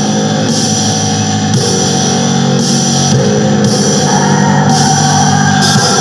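Funeral doom metal: slow, sustained distorted guitar chords with a bright wash recurring about once a second, the chord shifting about four seconds in.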